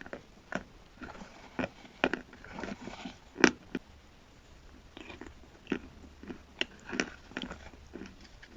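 Close-miked biting and chewing of chalk with paste: irregular sharp crunches with softer grinding between them, the loudest about three and a half seconds in.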